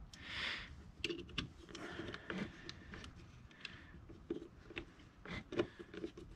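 Irregular small clicks and scrapes of metal parts being handled as a replacement chain tensioner is worked into place on a chainsaw by hand.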